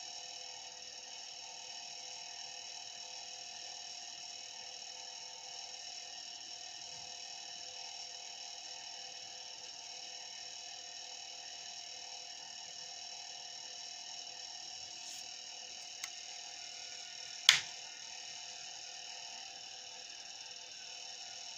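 Steady hum made of several fixed high and mid tones, with a small click and then one sharp, loud click about three-quarters of the way through.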